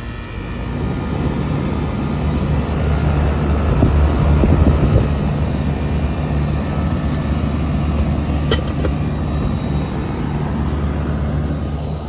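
Residential air-conditioning condenser running: a steady low compressor hum under the rush of the condenser fan, building up over the first second or two. It is running again on a 50/5 replacement run capacitor fitted in place of the failed 45/5, the fault that had kept the condenser from running.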